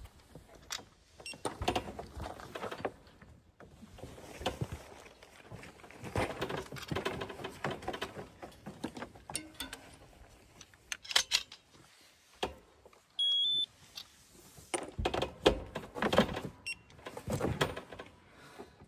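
Clicks, knocks and rattles of lambs being handled in a race while a TSU tissue-sampling applicator is closed on their ears, with one short electronic scanner beep about two-thirds of the way through.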